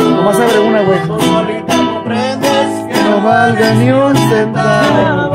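A violin, a harp and a small strummed guitar playing together live, with rhythmic strumming under a gliding melody line.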